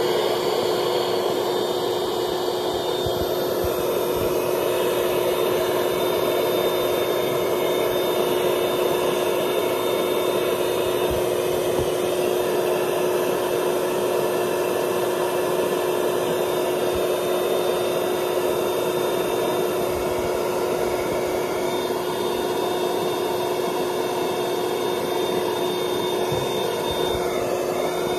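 Intex airbed's built-in electric air pump running steadily, a constant motor tone over rushing air as it blows up the still-soft mattress.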